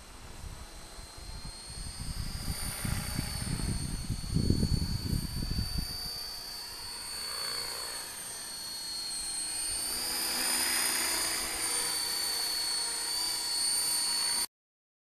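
Electric RC helicopter's high-pitched motor and rotor whine, wavering slightly in pitch as it flies, with a low rumble in the first half. The sound cuts out suddenly about a second before the end.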